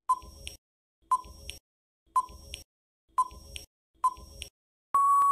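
Quiz countdown timer sound effect: five short beeps, one a second, then a longer steady beep near the end marking time up.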